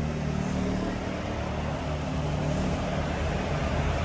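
Motor vehicle engine running steadily with a low hum, growing slightly louder near the end.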